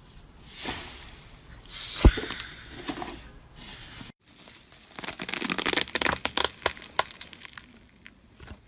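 Slime being played with, making crinkly crackling and popping sounds: a sharp pop about two seconds in, a brief gap, then a dense run of rapid crackles that fades out.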